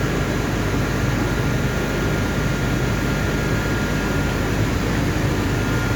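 Steel profile production line running: a steady machinery noise with a faint high tone held throughout.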